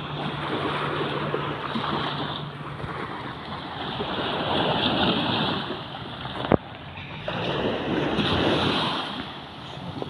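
Small waves washing up onto a sand beach, the hiss of the surf swelling and fading twice, with wind on the microphone. A single sharp click comes about two-thirds of the way through.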